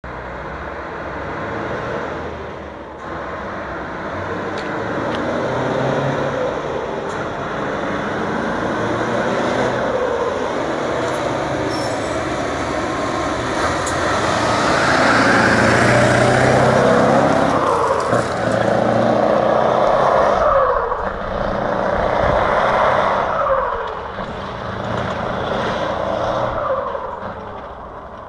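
Scania V8 diesel truck engine pulling away and accelerating. The revs climb and drop back several times as it works through the gears, loudest around the middle as it passes close, then fading near the end as it drives off.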